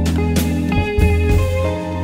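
Background music: a guitar-led track with bass and a steady drum beat.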